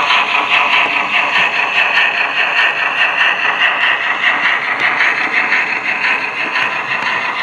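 Model railway train running past, a steam locomotive model hauling coaches: a steady, dense rattle of wheels on the track with fine, rapid ticking.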